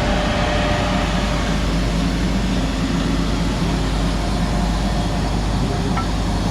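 Steady rumbling, noisy running sound of the Nilgiri Mountain Railway toy train.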